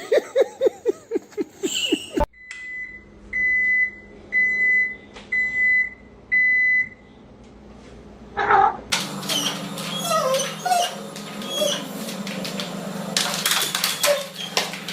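A quick run of about ten short, falling animal cries, then five evenly spaced electronic beeps about a second apart, then a busy jumble of clatter with short cries mixed in.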